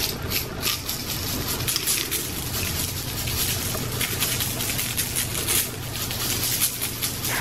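Sugar sprinkles rattling in a plastic flip-top shaker as it is shaken over an iced cookie, pattering onto the cookie and parchment paper in a quick, irregular run of small ticks.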